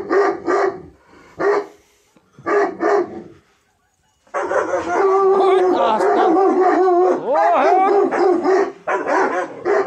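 Kangal dog barking: a few separate barks in the first three seconds, then after a brief pause a long, nearly unbroken run of barking and yelping, with the pitch sliding down and back up about seven seconds in.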